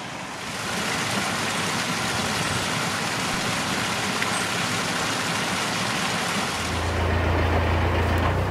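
A steady rushing noise, then about seven seconds in a narrowboat's engine comes in, running with a steady low hum.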